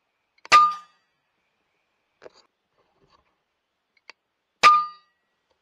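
Two shots from an FX Impact M3 .22 PCP air rifle, about four seconds apart. Each is a sharp crack followed by a brief metallic ring.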